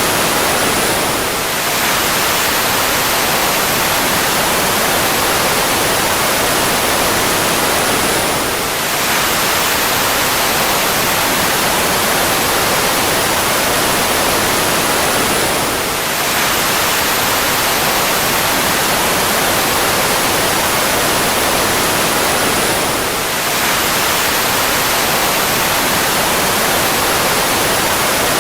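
Fighter jet engine running steadily: a dense, even rush of noise with a faint high whine that slides slightly down, looping about every seven and a half seconds with a brief dip in loudness at each join.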